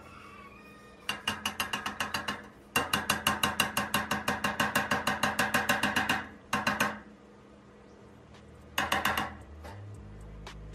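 Metal-tipped rod rapidly tapping the rusty steel barrel of an old bicycle pump, knocking rust loose. About nine ringing metallic strikes a second, in four bursts; the longest runs about three seconds.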